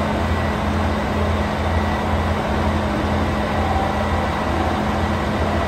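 KiHa 283 series diesel express railcar idling at a standstill, its engines giving a steady low drone with a constant hum above it.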